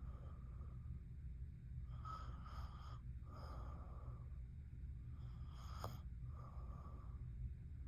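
A sleeping woman snoring softly: a few drawn-out, noisy breaths, with a short sharp click about six seconds in.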